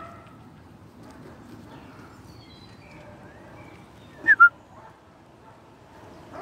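Dog sniffing with its nose in grass, with two short, sharp snorts about four seconds in.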